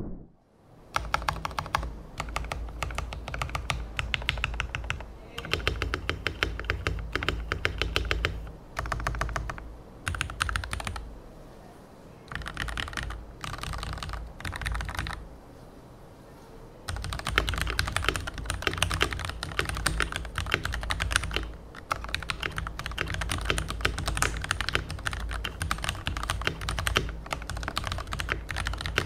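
Typing sound test on a Keychron V1 mechanical keyboard with a plastic case and tray mount. Fast runs of keystrokes come in bursts, with short pauses and a sparser, quieter stretch in the middle.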